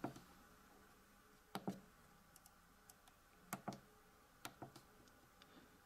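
Quiet clicks of the front-panel buttons on a Narda IDA 2 handheld spectrum analyser being pressed: three close pairs of clicks, with a few fainter ticks between them.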